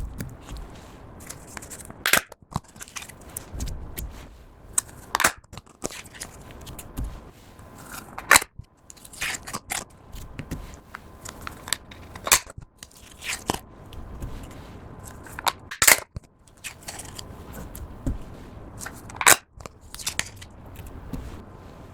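Slime being pressed by hand, giving a run of small crackles and clicks with a louder sharp pop roughly every three to four seconds.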